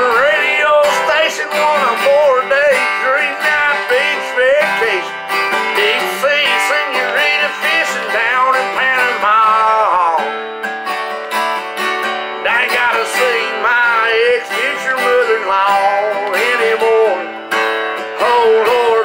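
Acoustic guitar strummed in chords while a man sings a country song.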